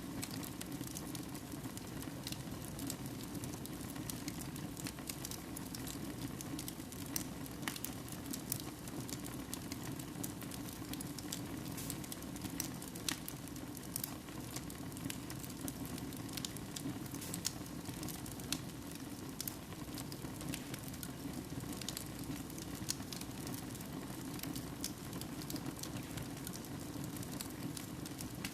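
Wood fire burning in a fireplace: logs crackling with frequent irregular sharp pops over a steady low rush of flame.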